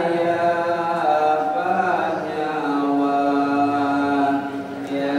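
A man chanting solo into a microphone, drawing out ornamented notes that glide between pitches, then holding one long steady note from about halfway through.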